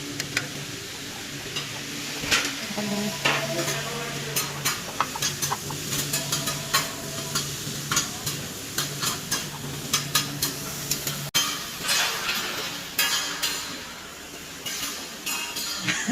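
Utensils and chopsticks clicking and clinking against bowls and plates at a hot pot table, with many sharp clicks over a steady hiss. A steady low hum underneath cuts off about eleven seconds in.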